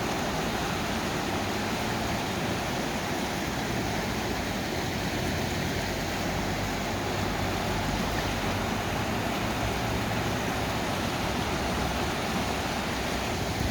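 Swollen floodwater rushing in a creek: a steady, unbroken rush of fast-moving water.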